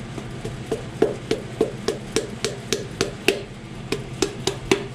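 A piston being tapped down through a ring compressor into an LS2 engine block's cylinder bore with a hammer: a steady run of sharp taps, about three to four a second, light at first and harder from about a second in.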